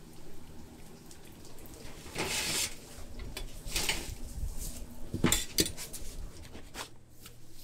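Steel spatula scraping and clinking against metal as fried scallion bread sticks are lifted from the frying pan and set on a perforated metal draining tray, a handful of sharp scrapes between about two and six seconds in.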